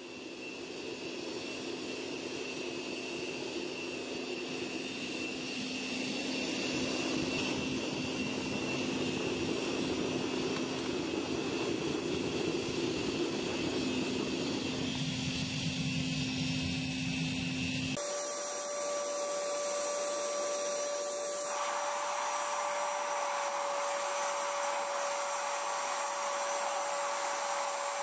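Gas-fired crucible furnace burning: a steady rush of the burner flame with a faint steady hum, the tone shifting abruptly about two-thirds of the way through.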